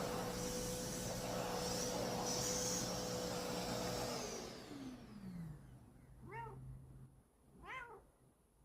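Vacuum cleaner running with a steady whine, switched off about four seconds in, its pitch falling as the motor spins down; then a cat meows twice.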